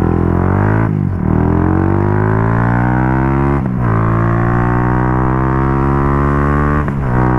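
Benelli RFS150i motorcycle with an aftermarket Racing Line exhaust accelerating through the gears: the engine note climbs steadily, drops sharply at each of three upshifts, then climbs again.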